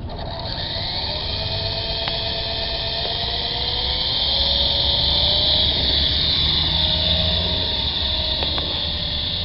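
Big QS 8005 radio-controlled helicopter's electric motors and rotors whining as they spin up, rising in pitch and loudness over the first few seconds and then holding steady.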